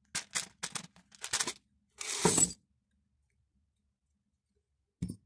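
Metal screws, bolts and washers clinking against a PVC pipe container, several sharp clicks, then a half-second rattling rush as they spill out onto the table about two seconds in. A single click near the end.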